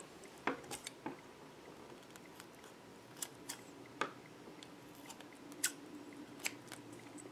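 Scissors cutting into a soft rubber squeeze toy with a cream filling: a few faint, spaced-out snips and clicks of the blades.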